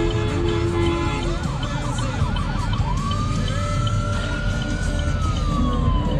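Emergency vehicle siren heard from inside a car: a fast warble for about a second and a half, then a slow wail that rises and falls. The car's engine and road rumble run underneath, and a steady low two-note tone sounds in the first second.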